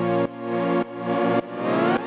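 Electronic background music with a pulsing beat: each chord swells and cuts off a little under twice a second, with a rising sweep near the end.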